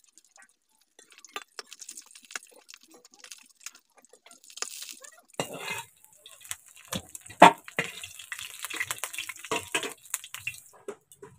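Fish pieces frying in hot oil in a metal wok, sizzling, with a metal spatula clicking and scraping against the wok and a steel plate as the fried pieces are lifted out. The sizzle grows much louder about halfway through, with one sharp clank in the middle, and stops shortly before the end.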